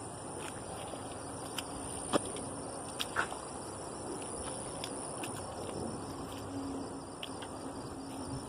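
Steady high-pitched insect trill outdoors, with a soft rustling haze underneath and a few sharp clicks and knocks, about two to three seconds in.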